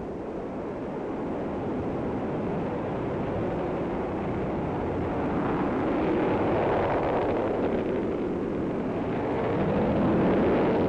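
Mercury-Atlas rocket engines firing during liftoff and climb: a steady rumble that grows louder.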